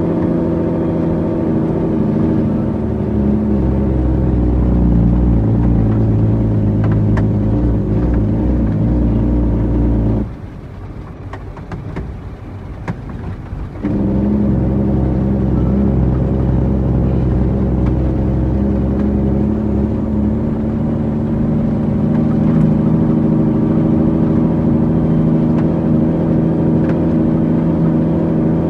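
International 9300 truck's diesel engine running steadily. About ten seconds in the sound drops away abruptly for some three and a half seconds, then comes back just as suddenly.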